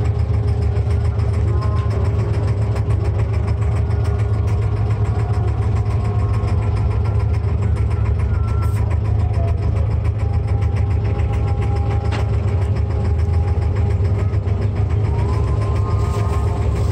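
Abra's diesel engine idling, a steady low hum with an even drone that holds through.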